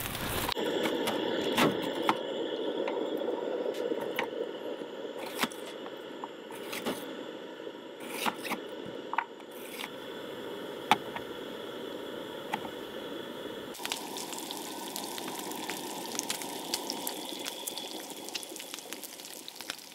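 Campfire crackling, a steady hiss of flames with scattered sharp pops.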